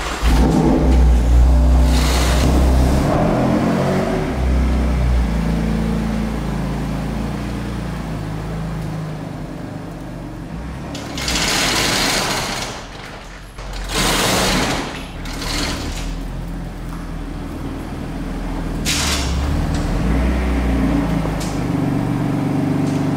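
BMW F80 M3's twin-turbo inline-six starting with a sudden flare and then running at low speed as the car is moved, its pitch shifting; two loud rushing noises come midway.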